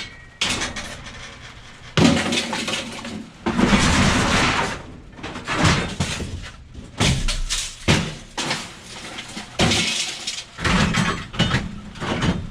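Scrap metal and junk, such as mowers, microwaves and metal sheet, being thrown down onto a pile. It makes a long string of crashes and clatters, some with a brief metallic ringing.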